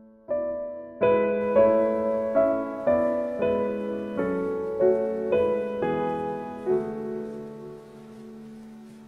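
Background piano music: a slow melody of notes and chords struck about twice a second, ending on a chord that rings away near the end.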